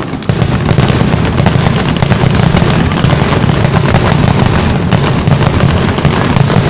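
Fireworks going off in a dense, continuous barrage of rapid pops and crackles over heavy low booming.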